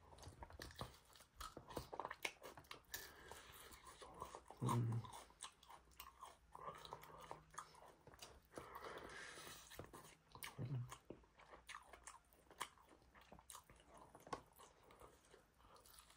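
A person chewing baby back ribs close to the microphone, with many small wet mouth clicks and smacks. Two short low sounds stand out, about five seconds in and again near eleven seconds.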